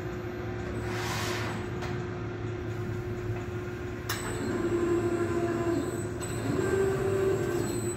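RAS Turbobend Plus 62.30 CNC folding machine running a 120-degree bend cycle. Its drives hum steadily, there is a sharp click about four seconds in, and then the motor note shifts and grows louder as the folding beam swings up.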